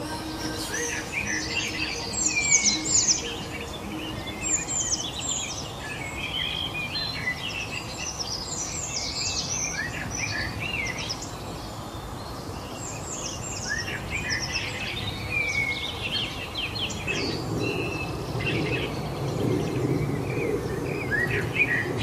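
Several songbirds chirping and singing in quick, overlapping phrases over a steady background hiss. A low rumble joins about three-quarters of the way through.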